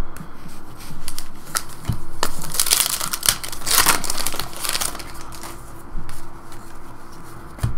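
Foil wrapper of a 2012 Upper Deck Goodwin Champions trading-card pack crinkling as it is handled and opened, mixed with the flick and slide of cards against each other. The crinkling comes in short crackly bursts, heaviest around the middle.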